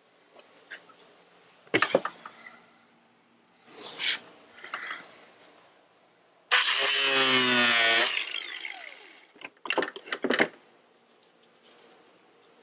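Tool work cutting away part of a plastic car bumper: a few short scraping, cutting bursts, then a loud stretch of about a second and a half whose pitch falls, then more short bursts.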